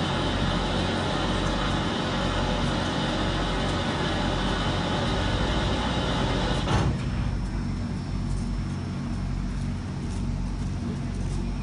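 Standing steam locomotive giving off a steady loud hiss over a low mechanical hum. About seven seconds in the hiss cuts off abruptly with a short knock, leaving only the low steady hum.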